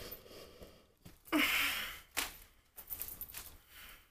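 A woman's breathy sigh about a second and a half in, followed by a few faint clicks.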